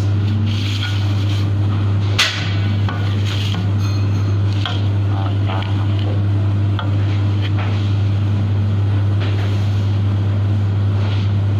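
Steady low hum of bakery kitchen machinery, with a sharp metallic clank of the metal baking tray being handled about two seconds in and a few lighter knocks after.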